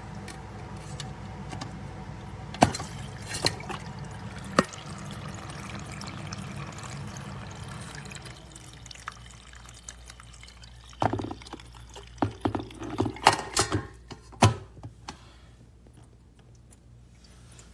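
Water pouring and splashing in a cat water fountain over a low steady hum, with a few sharp clicks. After that the water sound fades and a quick run of clicks and knocks follows.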